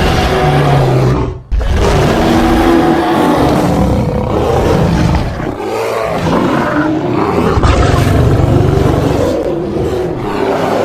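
Large animal growling and roaring in a continuous stretch of deep, rough calls, broken by a brief gap about a second and a half in.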